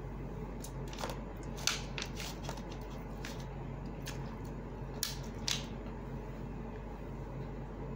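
Close-up eating sounds: short wet clicks and smacks of chewing and of fingers picking at grilled chicken and rice on a plate, bunched in the first five and a half seconds, over a steady low hum.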